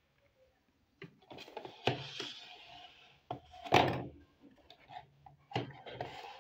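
Small hard plastic toy pieces clacking and knocking on a tabletop, with some scraping, as a miniature plastic toy stove unit is opened out and set down; the loudest knock comes nearly four seconds in.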